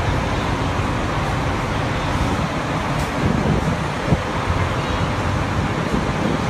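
Coach bus engine idling steadily with a low, even running sound, the doors closed and passengers aboard; a faint click about three seconds in.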